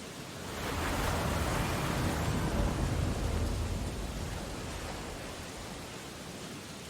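Ocean storm ambience: a steady hiss of rain and surf, with one swell of noise that rises about half a second in and slowly dies away over several seconds, like a large wave breaking.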